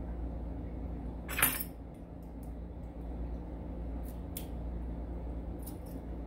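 Small metal clicks and clinks from handling a brass Evva 3KS lock cylinder and its key: one sharp clink about a second and a half in, then a few faint ticks as the key is slid into the plug.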